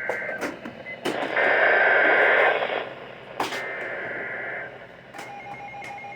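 Emergency Alert System SAME header: three screechy data bursts of two rapidly alternating high tones, each about a second long and about a second apart. Just after five seconds in, a steady alert tone begins.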